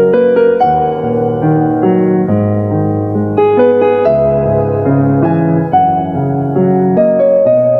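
Soft piano music, a melody of sustained notes over a moving accompaniment.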